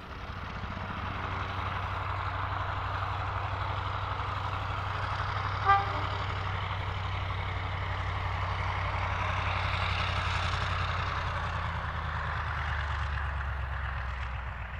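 Heritage diesel locomotive running past, a steady low engine hum under a rushing noise that builds to a peak about ten seconds in. A brief horn toot sounds about six seconds in, and the engine note drops lower near the end.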